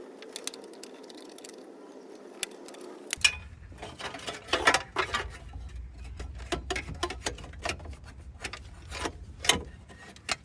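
Hand tools working on bolts and metal parts in a car's engine bay: irregular metallic clicks, taps and knocks, thickening about three seconds in over a low rumble.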